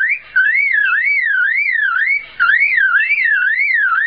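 Male superb lyrebird mimicking a car alarm: a warbling, siren-like tone sweeping up and down about three times a second, with two brief breaks between phrases.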